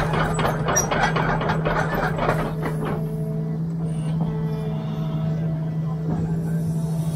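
Doosan excavator's diesel engine running steadily under load while its steel grading beam drags and spreads milled asphalt, with gravelly scraping and crunching over the first three seconds that then gives way to the engine's steady drone.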